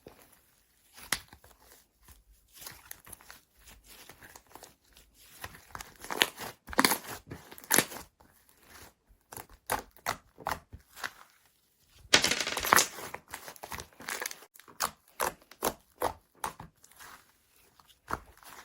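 Slime being squished and stretched by hand, making irregular crackling and popping sounds, loudest around six to eight seconds in and again about twelve seconds in.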